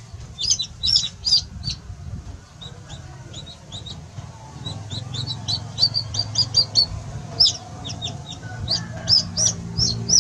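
Baby chicks peeping: short, high-pitched peeps, a quick run of them in the first two seconds, then many more in close succession from about halfway through.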